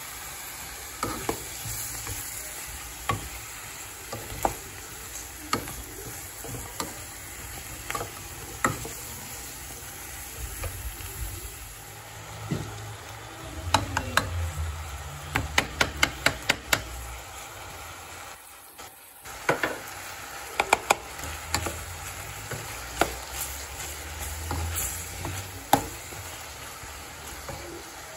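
Wooden spoon stirring sliced carrots, onion and celery as they sizzle in a stainless steel pot, with frequent sharp taps of the spoon against the pot, coming in a quick run about halfway through.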